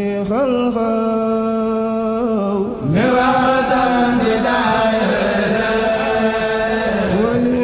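Unaccompanied chanting of Arabic religious verse: one voice holding long, drawn-out notes with small ornamented turns, breaking off and starting a new phrase about three seconds in.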